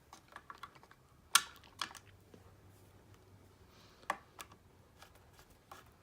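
Scattered sharp clicks and taps of a wall switch and its copper wires being handled and pushed into an electrical box, the loudest about a second and a half in.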